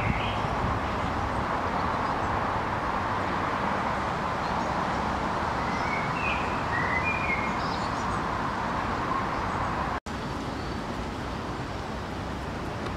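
Steady outdoor background of distant traffic, with a few short bird chirps near the start and again around six to seven seconds in. The sound cuts out for an instant about ten seconds in.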